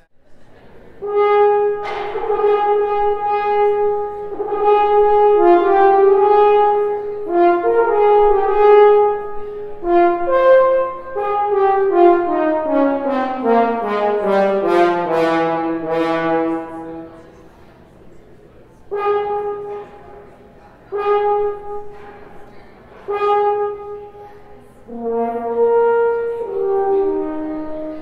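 Solo French horn played on a Felix Cantesanu Model C mouthpiece with an M rim. It plays a passage of separate notes, then a long phrase that steps down into the low register about halfway through, then short detached notes near the end.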